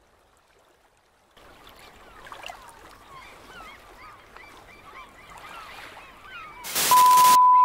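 A flock of birds calling with many short rising and falling calls over a background hiss. About seven seconds in they are cut off by a loud burst of noise, followed by a steady, loud, high beep.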